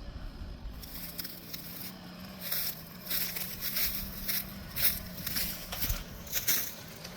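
Footsteps crunching through dry leaves and brush, about two steps a second, with the crackle of twigs underfoot.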